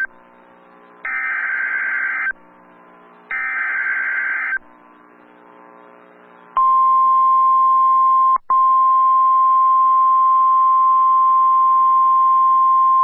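Emergency Alert System header tones over radio: two roughly one-second bursts of buzzing digital data about a second apart, the end of the coded alert header. After a short pause, a single steady high alert tone starts and holds, with a brief dropout about two seconds in. The single tone fits the 1050 Hz NOAA Weather Radio warning alarm tone that precedes a new warning.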